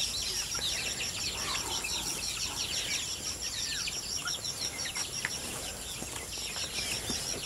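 A flock of young chickens peeping, many short falling chirps overlapping without a break. A steady high pulsing at about four beats a second runs underneath.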